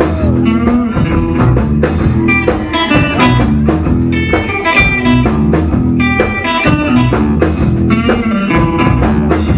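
Live blues-rock band playing an instrumental passage: electric guitar lines with bent notes over steady low notes and drums, with no vocals.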